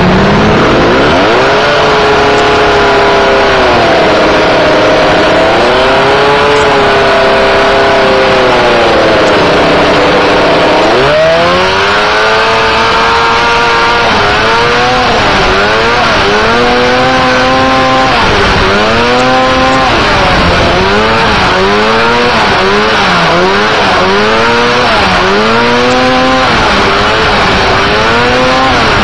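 Engine of a small off-road dune buggy heard from the driver's seat, running hard with slow swells in pitch. About a third of the way in it revs up sharply, then revs up and eases off over and over, every second or so, as the buggy climbs and bounces over the sand, with a constant rushing noise underneath.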